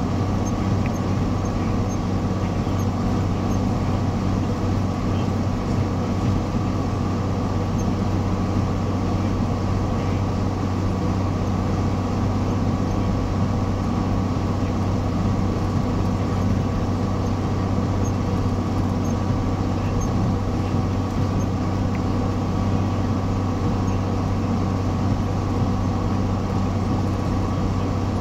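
John Deere tractor's diesel engine running steadily at field speed, a constant low drone that does not change.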